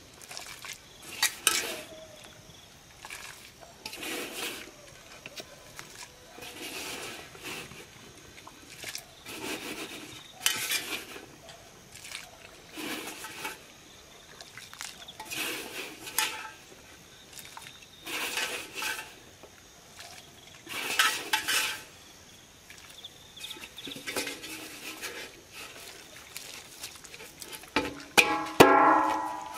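Cooking utensils scraping and knocking against a pot or pan in short strokes, one every two to three seconds. A brief pitched call, a voice or an animal, comes near the end and is the loudest sound.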